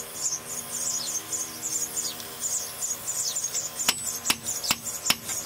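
Insects, likely crickets, chirping in a steady rhythm of about two to three high chirps a second. Sharp clicks at about the same pace join in near the end.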